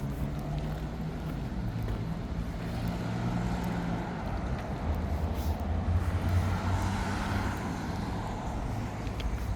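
Road traffic on a city street: vehicle engines running, with one vehicle passing close and loudest about six to seven seconds in.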